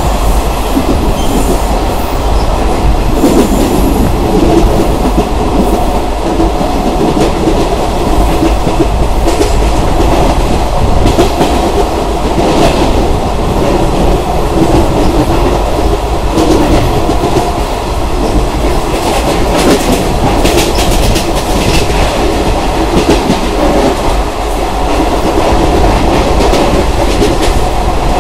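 Indian Railways ICF passenger coach running at speed: a steady loud rumble of wheels on the track, with clickety-clack and sharper clacks now and then as the wheels cross rail joints, heard from the open doorway.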